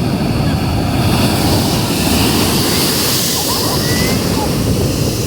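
Strong wind buffeting the microphone with a heavy rumble, over sea waves breaking and washing up the shore; a surge of surf hiss swells about a second in and eases near the end.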